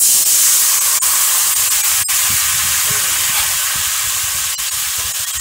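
Wet spice paste of turmeric, ginger, cumin paste and chilli powder mixed with water hitting hot mustard oil in a kadai: a loud sizzle that starts at once and eases slightly, with a sharp pop about two seconds in.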